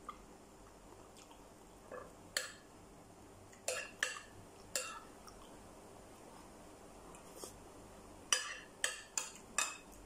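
Metal spoon scooping food and clinking against the dishes: about eight sharp clinks with a short ring, a group of four between two and five seconds in and another quick group of four near the end.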